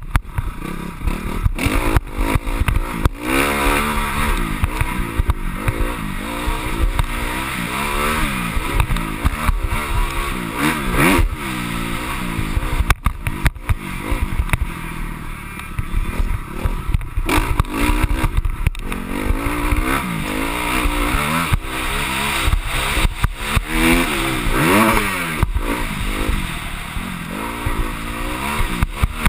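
Motocross bike engine ridden hard around a dirt track, its pitch rising and falling over and over as the rider opens and closes the throttle and changes gear, with wind buffeting and knocks over the bumps.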